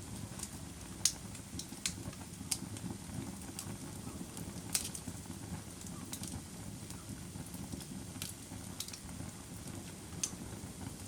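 Fire burning in a fireplace: a steady low rumble of flames with irregular sharp crackles and pops, about one every second or two, the loudest about a second in and about five seconds in.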